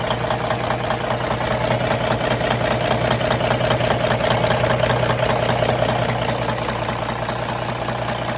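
Cummins N14 diesel engine of a Kenworth T800 truck idling steadily, with an even, rapid clatter running through it.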